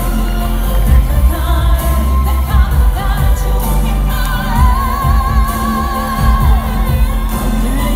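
Woman singing a pop ballad live over an amplified backing track with heavy bass. A little past the middle she holds a long note with vibrato, then slides down from it.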